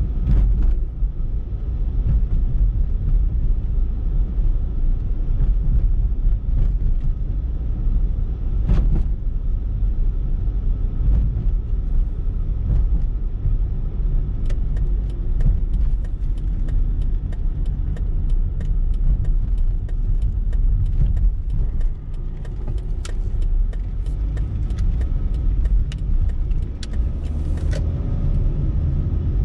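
Car driving at low speed, heard from inside the cabin: a steady low rumble of engine and tyres on the road. From about halfway to near the end comes a run of light, regular clicks, about three a second.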